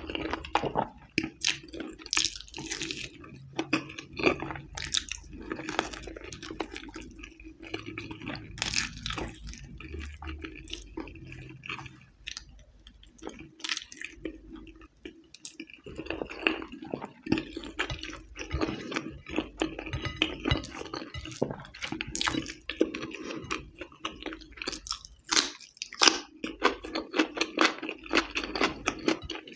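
Close-miked eating by hand: chewing and wet mouth smacks on mouthfuls of ghee rice (nasi minyak) and chicken in red chilli sauce, with sticky fingers squelching through the rice on the plate. It comes as frequent, irregular clicks and smacks.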